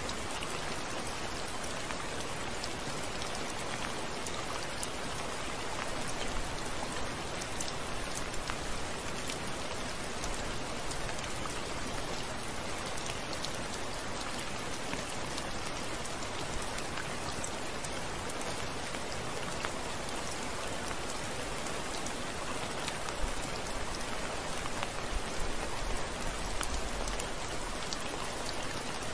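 Heavy rain falling steadily, a dense even hiss of drops splashing on a wet surface, with a few louder drop hits near the end.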